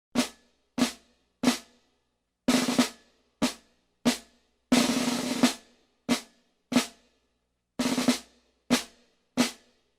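Snare drum playing a repeating figure: a short roll ending on an accented stroke, then two single strokes, about half a second apart.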